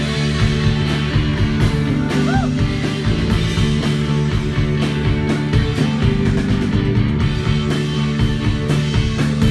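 Rock band playing live: electric guitars over bass and a drum kit, an instrumental passage without singing.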